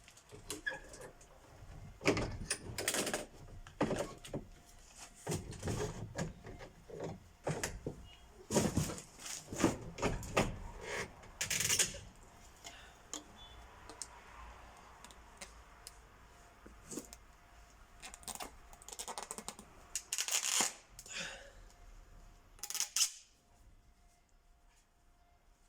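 Handling of a sectional metal paintless-dent-repair tool pipe being taken apart and fitted back together: irregular clicks, knocks and rubbing of the parts, which die away about 23 seconds in.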